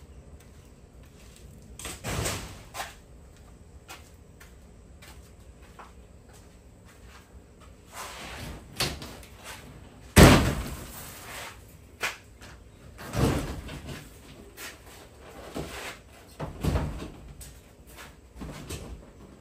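Demolition noise from siding being torn off: separate bangs and scraping or tearing sounds every few seconds, the loudest bang about ten seconds in.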